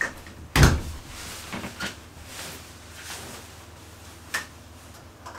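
Quilted nylon puffer jacket rustling as it is pulled off and hung up, with a dull thump about half a second in and a few light clicks.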